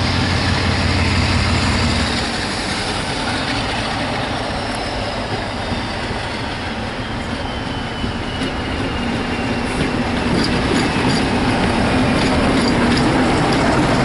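Diesel locomotive hauling a passenger train past, its engine running. A faint falling whine comes in the middle, and the clatter of wheels over rail joints grows louder near the end as the coaches go by.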